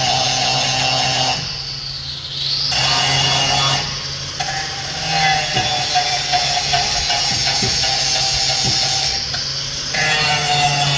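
A power tool runs in several bursts, stopping briefly about a second and a half in, again near four seconds, and again near nine seconds, with a few knocks in between. Music plays in the background.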